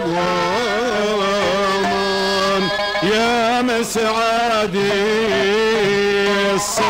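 Iraqi maqam music in maqam Saba: long held melodic notes with wavering ornaments and slides, broken by short pauses about three seconds in and near the end.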